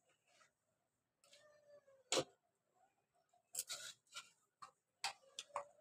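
Quiet clicks and clattering knocks of a steel spoon and bowl being handled over a steel plate, with two faint, drawn-out, meow-like cries, one about a second and a half in and one near the end.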